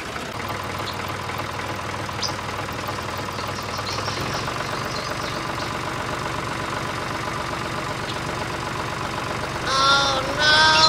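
Tractor-style engine sound idling steadily, a diesel-like hum with an even tone. About ten seconds in, a few high chirping calls rise and fall over it.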